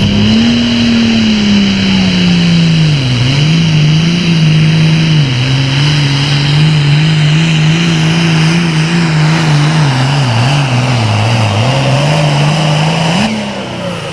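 John Deere super farm pulling tractor's turbocharged diesel engine running hard under load, its pitch dipping and recovering again and again as it pulls the sled. About 13 seconds in the pitch jumps briefly, then falls and the sound gets quieter as the throttle comes off.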